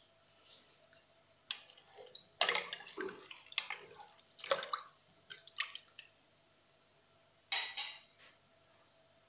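Wooden spoon stirring split fava beans and garlic cloves in water in a metal pot, not yet boiling: irregular splashes and scrapes for a few seconds, then one more stir near the end.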